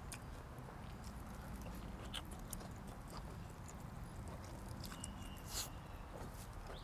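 Faint chewing while eating boiled pork, with scattered small mouth clicks and one sharper click about five and a half seconds in.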